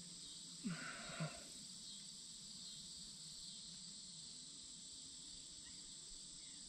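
Faint, steady chirring of insects in the background, with one brief soft sound about a second in.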